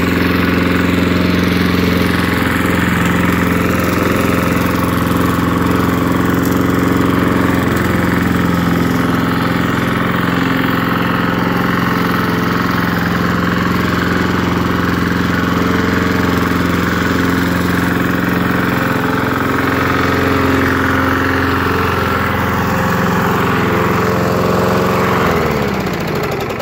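Lawn mower's small gas engine running at a steady speed, then shut off near the end, its pitch falling as it spins down.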